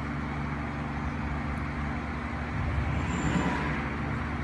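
Steady low rumble of road traffic with a constant hum, swelling briefly about three seconds in.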